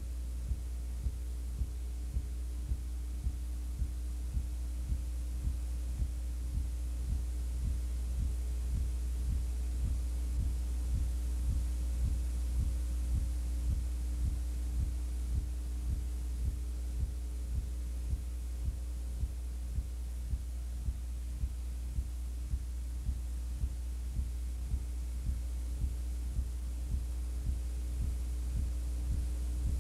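Steady low electrical hum with a regular low thump about twice a second. It is noise on an old videotape's sound track rather than sound from the game.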